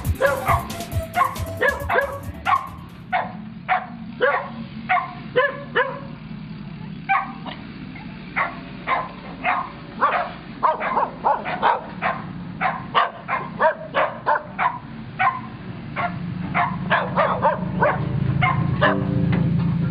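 A group of stray dogs barking in a long, uneven run of short barks, roughly two or three a second, with brief pauses between bouts.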